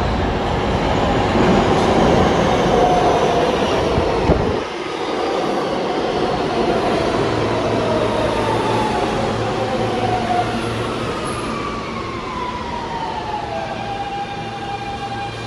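New York City Subway train on the IND Queens Boulevard Line: a loud rumble of cars passing that drops away sharply about four and a half seconds in, then a motor whine that falls steadily in pitch before levelling off near the end.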